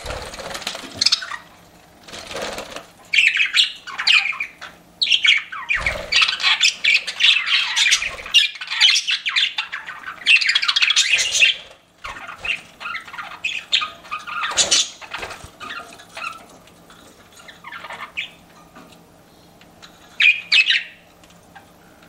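Pet budgerigars chattering, with rapid high chirps and squawks that are dense for the first half and then thin out to scattered calls, ending with a short loud burst of chirps.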